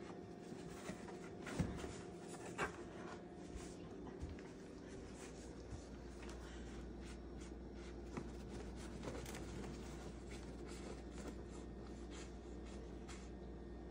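Paper grocery bag rustling and crinkling in short, irregular scratchy crackles as a cat noses and digs around inside it.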